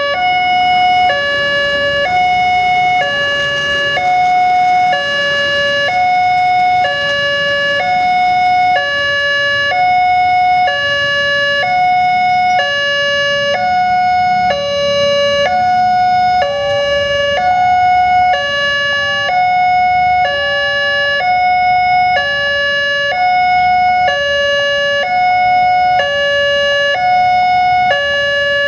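Two different railway level-crossing warning sirens sounding together, each alternating between a high and a low tone about once a second. Their tones overlap out of step, a clash of the crossing's two sirens signalling that a train is approaching.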